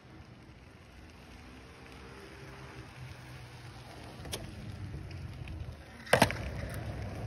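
Onewheel electric board rolling over concrete with a faint hum. About six seconds in there is a sharp, loud knock as the board mounts a concrete skate ledge, followed by a rougher rolling and scraping noise as it runs along the ledge.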